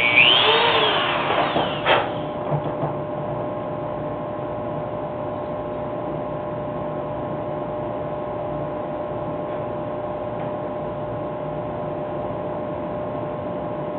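Handheld rotary tool with a small bit boring into a wooden carving for about two seconds, its whine sweeping up and back down as the load changes. It ends in a sharp click, and a steady motor hum carries on after that.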